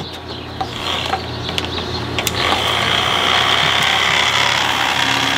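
Small motor of a battery-powered toy blender running steadily while water spins in its plastic jar; about two and a half seconds in, a louder swishing of the churning water joins the motor hum.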